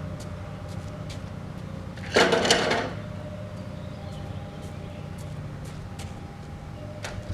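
Home-made sawmill's engine running steadily at low speed, with light ticks about every half second. A short, loud burst of noise about two seconds in lasts under a second.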